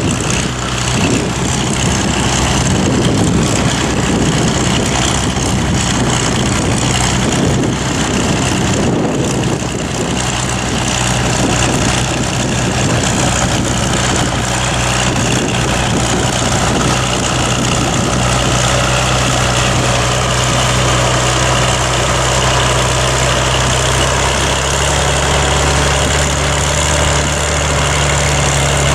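Farm tractor diesel engine running steadily while ploughing, with wind buffeting the microphone, strongest in the first ten seconds or so.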